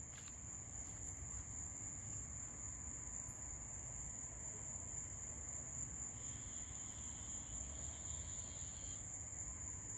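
Cricket singing one continuous, steady high-pitched trill, with a fainter, lower trill joining from about six to nine seconds in.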